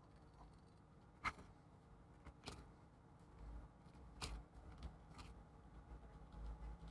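Near silence broken by four faint, sharp clicks and taps, spread a second or two apart, from small objects being handled.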